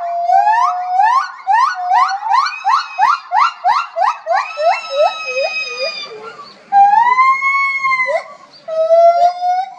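Zoo primates calling: a fast run of short rising calls, about three a second, that slows into longer drawn-out calls, then one long arching call about seven seconds in and a few short level calls near the end.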